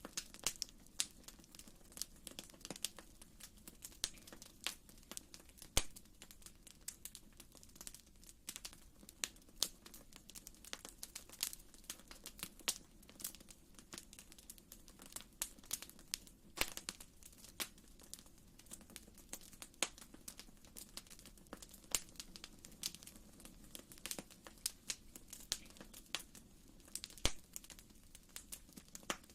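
Wood fire crackling in a fireplace: a continuous stream of irregular small pops and snaps over a faint steady low background.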